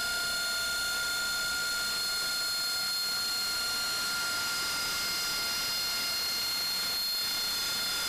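Jet engine running steadily at idle: a constant high whine of several held tones over an even hiss.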